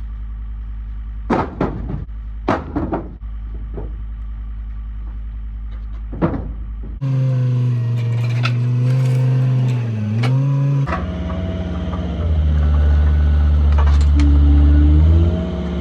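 Wooden bunks thrown down with four or five sharp knocks over a steady idling engine. After that comes a louder engine running under load, its pitch dipping and then rising in steps near the end.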